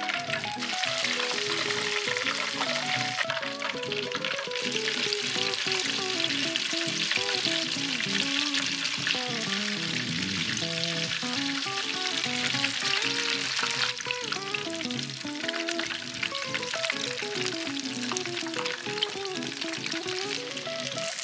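Battered chicken pieces deep-frying in a pot of oil: a steady, dense crackling sizzle, with background music underneath.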